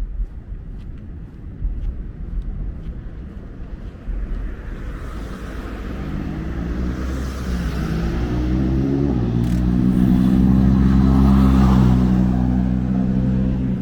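Low wind rumble on the microphone, then a motor engine drawing near with a steady hum that grows louder, peaks about eleven seconds in and starts to fade near the end.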